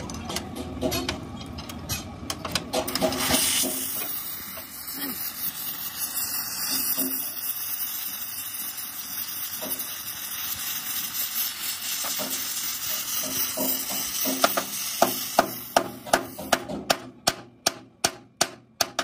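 Oxy-fuel gas torch hissing steadily as it heats the steel of a truck chassis frame. Near the end the hiss stops and a run of sharp, evenly spaced metal taps follows, about three a second.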